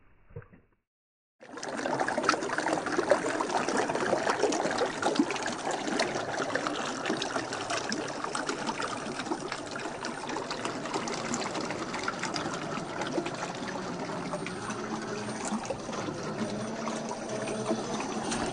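Shallow creek water trickling and splashing over rocks, a steady babble that starts suddenly about a second and a half in.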